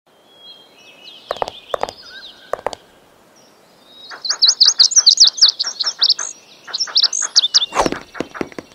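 Cartoon bird chirping and tweeting for an animated bluebird: scattered high chirps, then a fast flurry of twittering from about four seconds in. Three short pops come in the first three seconds, and a falling swoosh comes near the end.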